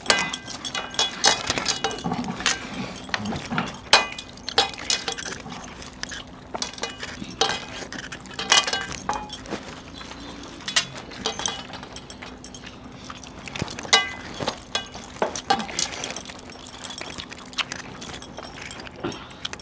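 Hands tearing curried chicken apart on steel plates, with many scattered clicks and clinks of heavy metal bangles and rings knocking against the plates, and chewing. A faint steady hum runs underneath.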